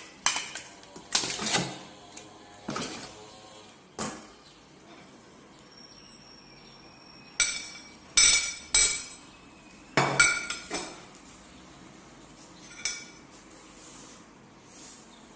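Steel cooking pot and bowl clanking as raw mutton pieces are tipped into the pot, then garlic cloves slid in off a plate. About a dozen separate knocks and clinks; the loudest, from about seven to eleven seconds in, ring with a metallic note.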